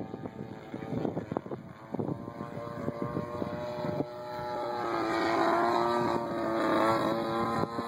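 RC Yak 54's DL50 50cc single-cylinder two-stroke gas engine and propeller droning overhead in flight, the engine note growing louder and steadier from about halfway through as the plane comes closer. Wind buffets the microphone in the first half.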